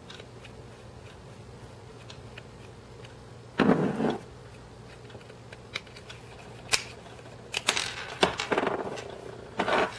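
Screwdriver and metal parts of a small Martian Commercial 6.35mm pistol being handled as its left grip screw is backed out and the grip panel lifted off. There is one short scrape about a third of the way in, then a series of sharp clicks and taps in the second half.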